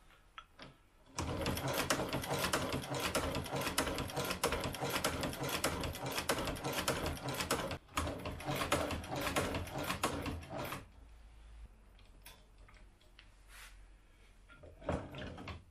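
Sfeomi cobbler's hand-crank sewing machine mechanism clicking rapidly as it is worked, starting about a second in and stopping about eleven seconds in, with a brief break near eight seconds. A few scattered clicks follow.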